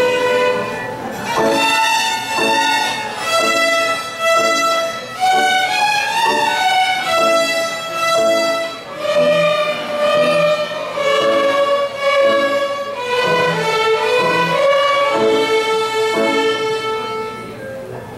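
Violin ensemble playing a medley in A major: a melody of held notes over a pulsing lower accompaniment, with the music ending near the close.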